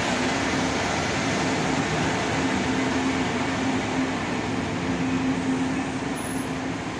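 DB ICE high-speed train rolling past on the near platform track: a steady mechanical hum with a low droning tone over a wash of running noise, easing slightly near the end.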